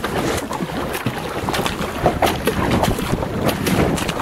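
Kayak paddle blades dipping and splashing in sea water with irregular strokes, with wind buffeting the microphone.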